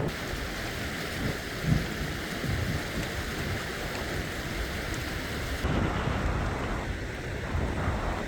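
Wind buffeting the microphone in gusts, a rumbling hiss with no voices.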